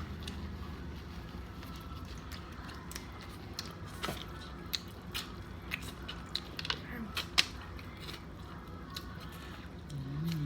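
People eating seafood: a string of sharp clicks and cracks with chewing, the loudest crack about seven seconds in.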